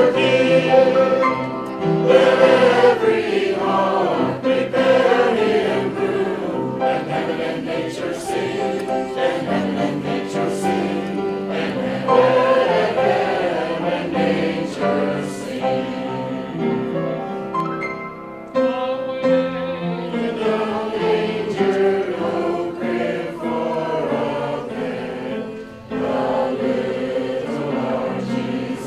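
A group of voices singing together in harmony, choir-style, with held and gliding notes.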